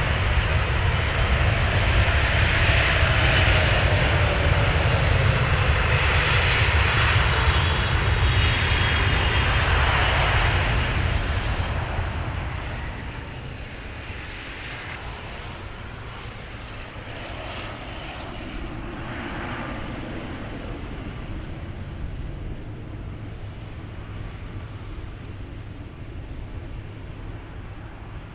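Jet airliner's engines passing close, loud for about ten seconds with a falling whine, then fading to a distant rumble.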